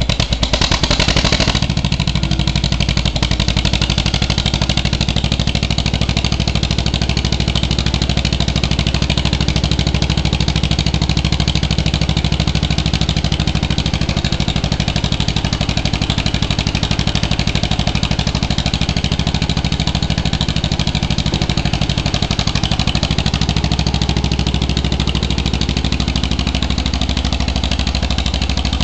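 John Deere 420 crawler's two-cylinder all-fuel engine, running on petrol, just started. It runs faster for the first second or so, then settles into a steady run.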